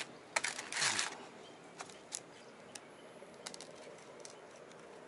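Sandpaper and a plywood sanding disc being handled by hand. A short scraping rustle comes about half a second in and lasts about half a second, and a few light clicks and taps follow.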